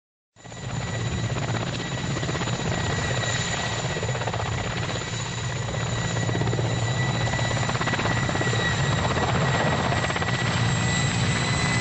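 Mil Mi-8 helicopter's rotor and twin turboshaft engines running steadily, with a constant high whine over the dense rotor noise. The sound cuts in about half a second in.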